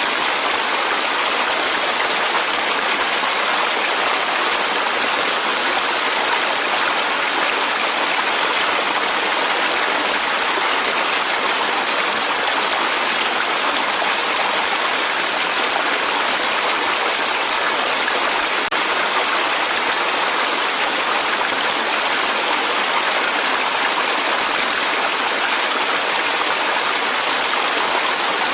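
Clear mountain stream flowing over rocks in a valley, a steady rushing and splashing of water.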